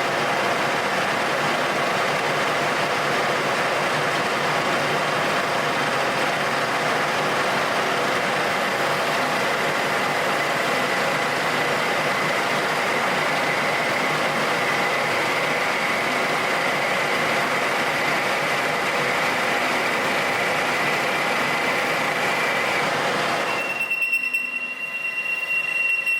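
Colchester metal lathe running with the carriage on power feed, the tool cutting an aluminium shaft: a steady machine noise with a faint whine. It changes abruptly about two seconds before the end, the deeper part dropping away.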